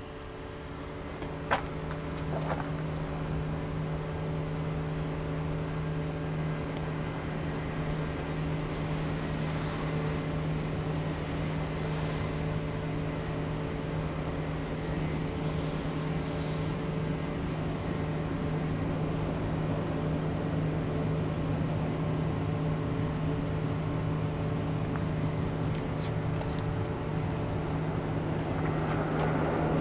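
Lockheed C-130J Hercules turboprop engines running with a steady propeller hum, growing gradually louder. A single sharp click about one and a half seconds in.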